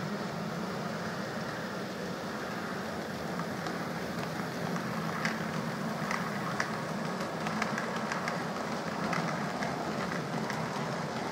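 OO gauge model freight train running past: a steady hum from the locomotive, with the wagons' wheels clicking over the rail joints and pointwork from about five seconds in.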